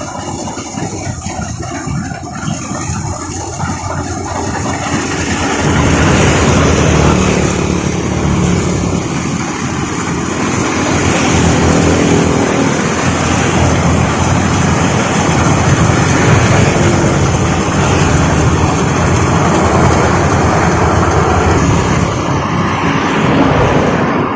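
Combine harvester running under load while cutting rice, a steady engine and machinery drone that grows louder about five seconds in.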